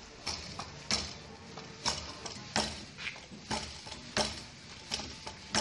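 Wing Chun wooden dummy struck by hand: hands and forearms knocking against its wooden arms in a run of sharp knocks, about two a second and unevenly spaced.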